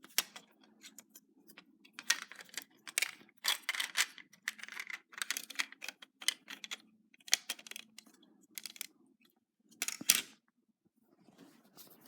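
Irregular clicks and short rustles of small parts being handled, over a faint steady hum, with the loudest click about ten seconds in.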